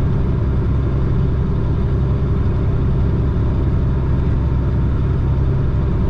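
Chenglong concrete mixer truck's diesel engine running steadily, a constant low drone with no rise or fall in pitch, heard from the cab.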